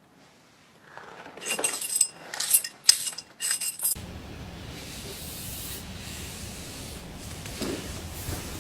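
Scissors snipping through a thick bunch of hair: a quick run of about six scraping cuts with a metallic ring. After that a steady, even hiss.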